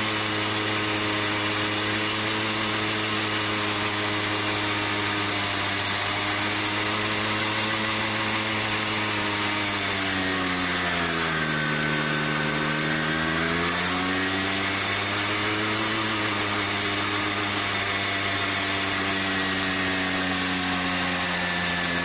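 Simson Star moped's 50 cc two-stroke single-cylinder engine held at high revs during a burnout, with the rear tyre spinning. About halfway through the revs sag for a few seconds, then climb back and hold steady.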